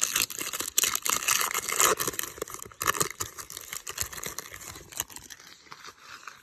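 Foil wrapper of a trading-card pack crinkling and tearing as it is opened, with the rustle and clicks of the cards being handled. The crackle thins out near the end.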